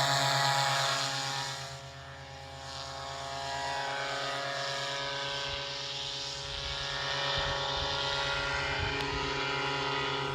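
A steady engine drone with an even, pitched hum, dipping slightly in level about two seconds in.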